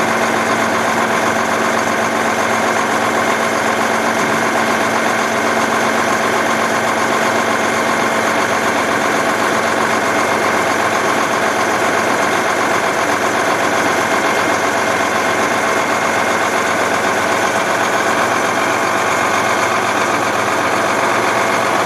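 1995 Freightliner FL80 dump truck's diesel engine idling steadily while the raised dump body is lowered.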